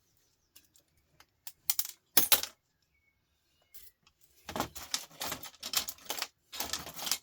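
Small metal and plastic scrap parts from a dismantled record player clicking and clattering as they are handled and dropped: a few sharp clicks in the first couple of seconds, then a longer spell of rattling in the second half.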